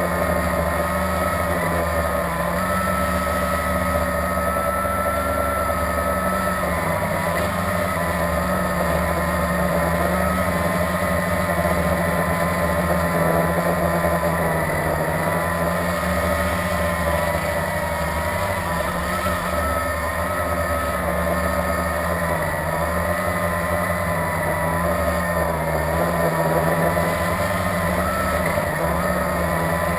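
Blade 350QX quadcopter's electric motors and propellers buzzing steadily in flight, the pitch wavering up and down as the motor speeds keep shifting.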